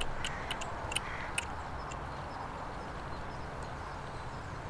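Outdoor ambience: a rapid series of high, sharp chirps or ticks, about five a second, fading out after a second and a half, over a steady low background rumble.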